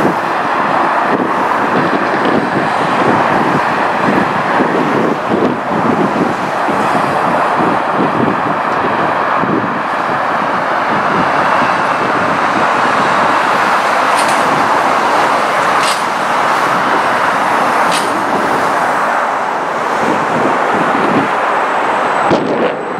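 Steady road traffic noise from cars and trucks on a multi-lane freeway, tyres on pavement, with three short high ticks about two seconds apart in the second half.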